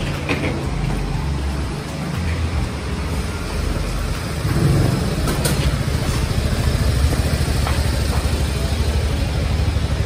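Small box truck's engine idling close by, a steady low rumble that grows stronger and takes on a fast, even pulse about halfway through.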